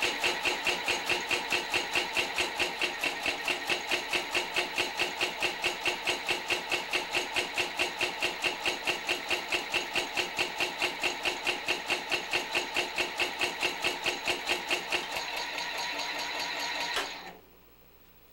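Inertial propulsion engine, a modified Dean drive, running with its shifters engaged: a steady motor whir with an even pulse about four times a second. A couple of seconds before the end the pulsing stops, and about a second later the machine cuts off suddenly.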